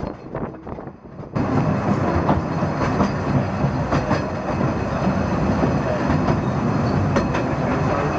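Open-sided carriage of a 610 mm (2 ft) narrow-gauge railway rolling along the track: a steady rumble with scattered sharp clicks of the wheels over rail joints. The first second or so is quieter wind noise on the microphone, then the rumble cuts in abruptly.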